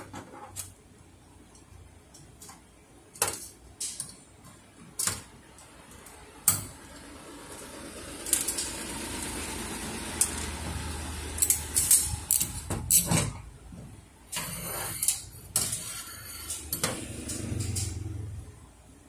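Scattered sharp metallic clicks and clinks as the sheet-metal frame and parts of a Ricoh 5001/5002 copier fuser unit are handled by hand. A low engine hum swells in the background through the middle and again near the end.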